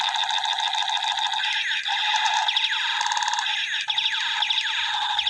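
Electronic sound effect from a battery-powered toy gun: a steady buzzy tone with repeated falling "pew" sweeps and a fast rattling burst about three seconds in.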